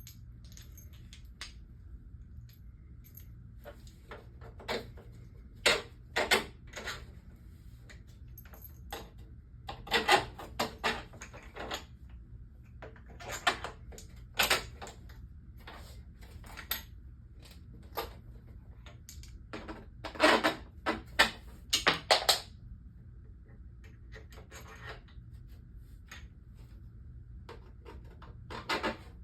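Pottery wheel's metal back plate and its screws being handled and fitted back on: irregular clicks and clatters of metal, coming in clusters with short quiet gaps between.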